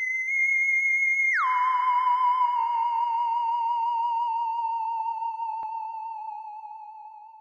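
A single theremin-like electronic tone: held high, then sliding down about an octave a second and a half in, then wavering with a slow vibrato as it sinks slightly and fades away near the end. A faint click about five and a half seconds in.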